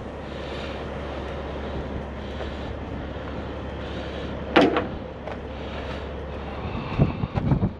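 Truck engine idling with a steady low rumble, a loud sharp knock about halfway through, and a quick run of knocks and thuds near the end.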